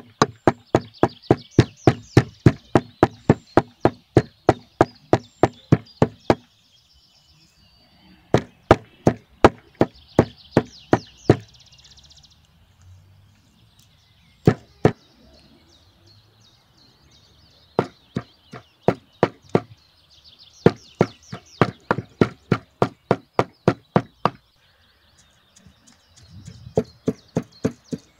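Steel meat cleaver chopping raw meat into mince on a wooden tree-stump block. The strokes come in quick, even runs of about four to five a second, with a few short pauses between runs.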